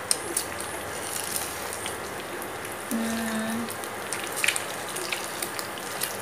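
An egg frying in oil in a ceramic wok on an induction cooktop: a steady sizzle with crackles, and a spatula tapping and scraping against the pan as the egg is turned. About halfway through, a brief low steady tone sounds for under a second.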